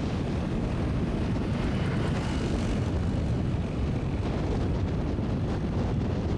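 Steady rush of wind buffeting the microphone on a moving motorbike, with the bike's engine and tyre noise running underneath.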